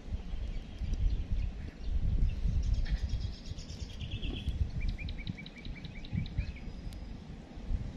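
Wind buffeting the microphone with an uneven low rumble, over which a bird calls: scattered chirps, then a quick run of about eight repeated notes in the second half.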